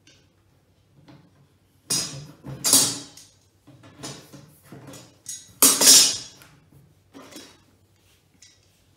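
Knocks and clatter of wooden flat-pack drawer panels and a hammer being handled during assembly, with loud knocks about two seconds in, again just after, and a louder double knock near six seconds.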